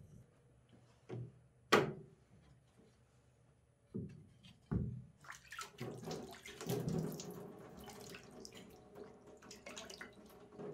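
A few sharp knocks in the first half as the whetstone is changed in its metal holder, then water splashed by hand onto the new whetstone in quick irregular scoops.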